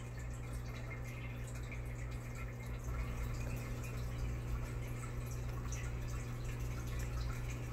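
Aquarium air stone bubbling: a dense patter of small bubbles breaking at the water surface, over a steady low hum.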